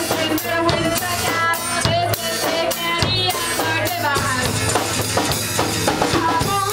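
A band playing a song live, a drum kit keeping a steady beat with kick and snare under pitched instruments.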